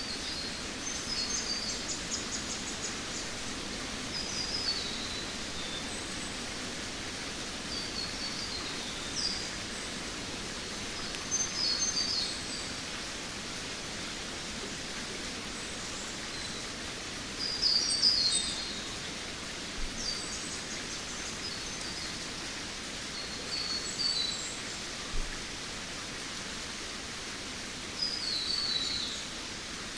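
Jungle birdsong over a steady background hiss: short calls that fall in pitch, coming every few seconds, with a quick trill near the start and the loudest call about eighteen seconds in.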